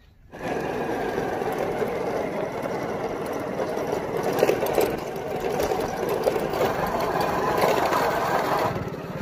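A small motorcycle's engine running steadily as it is ridden along a dirt track, a rapid mechanical rattle that cuts in abruptly just after the start.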